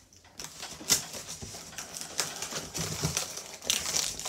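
Cardboard box flaps being pulled open and handled: rustling and scraping of cardboard with small clicks and one sharp crack about a second in.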